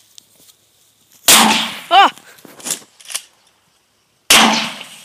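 Shotgun fired twice outdoors, the two shots about three seconds apart, each ringing off briefly. A short cry comes just after the first shot.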